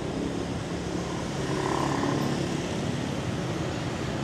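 Vehicle engine running with steady road and traffic noise while travelling along a city street, a little louder about two seconds in.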